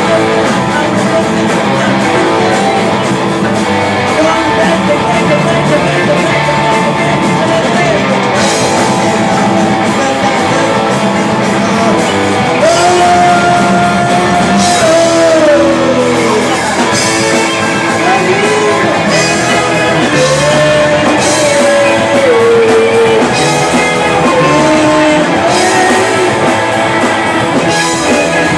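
Live amateur rock band playing loud: electric guitars, keyboard and drum kit with a lead singer singing over them. Cymbal hits come in at a steady beat from about eight seconds in.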